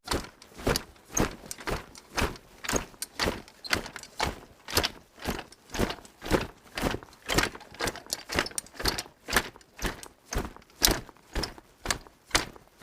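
Horror-film sound effect of footsteps: a steady walking pace of about two steps a second, each step a sharp knock.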